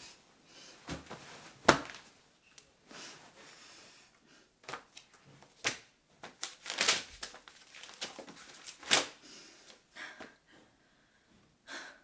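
Scattered rustling and soft knocks of a person shifting on a bed and handling a paper notebook, its pages rustling as it is opened. A few sharper rustles stand out, one a little under two seconds in and one about nine seconds in.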